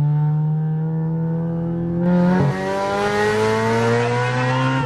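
Honda Civic SiR's swapped B20 VTEC four-cylinder engine accelerating hard, heard from inside the cabin, its pitch climbing steadily. About two seconds in the note turns suddenly louder and harsher as the VTEC crosses over, and it keeps rising until it drops away at the very end.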